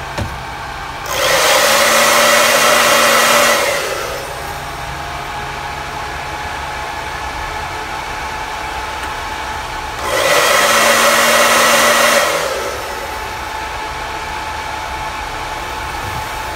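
Hair dryer blowing in two bursts of about two and a half seconds each, one about a second in and one about ten seconds in, heating the fan controller's temperature probe. Underneath, the G4 Cube's cooling fan whirs steadily, ramped up to speed by the temperature-controlled fan controller.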